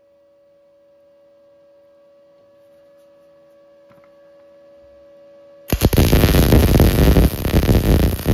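A faint steady hum, then about two-thirds of the way in the Arc Captain MIG 200 inverter welder strikes its MIG arc and runs a bead. The arc sounds as a sudden, loud, uneven crackle, with the welder set at about 111 amps in synergic mode.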